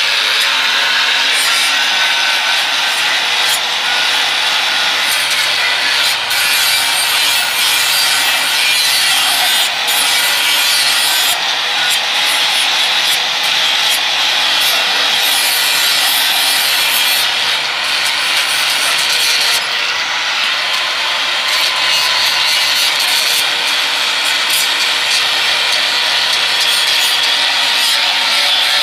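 Handheld electric angle grinder with an abrasive disc grinding the edge of an iron-plate chopping knife to sharpen it: a continuous, loud, harsh grinding hiss over the motor's steady whine.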